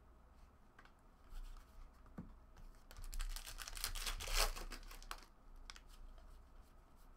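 Trading cards and foil pack wrappers being handled: soft rustling and clicks, then a dense burst of crisp crinkling and tearing from about three to five seconds in.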